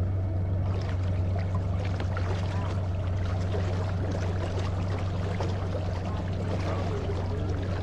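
Outboard motor running at a steady low speed, a constant low hum, with water rushing and splashing along the boat's hull that grows louder about a second in.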